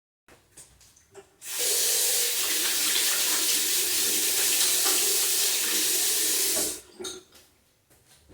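Water running steadily from a household tap or shower, turned on about one and a half seconds in and shut off again after about five seconds, with a few faint clicks around it.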